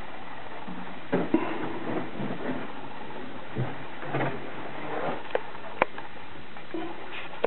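Scattered knocks, clicks and rustling of someone moving about inside a small boat cabin, with two sharp clicks about five and six seconds in, over a steady background hiss.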